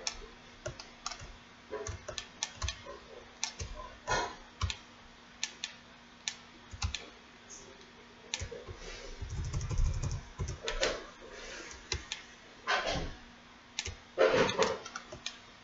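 Computer mouse and keyboard clicking in scattered, irregular taps over a faint steady hum. A couple of longer, louder rustles come near the end.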